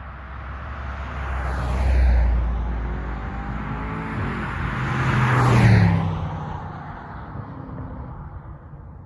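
Two cars pass, loudest about two seconds and about six seconds in. The second pass-by is the BMW M850i's V8 on throttle, its engine note dropping in pitch as it goes by.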